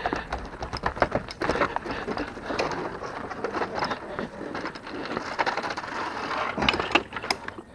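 Footsteps and handling noise on a wooden plank footbridge: a run of irregular knocks, scrapes and crackles, with a couple of sharper knocks near the end.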